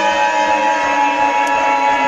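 Emergency Alert System attention signal: its two shrill tones held steady and loud, mixed with a lower tone that slowly drops in pitch.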